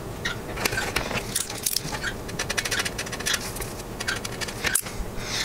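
Handling noise from an instrument cluster circuit board being shifted and turned over on a work mat: a run of small clicks, taps and scrapes of its plastic and board edges.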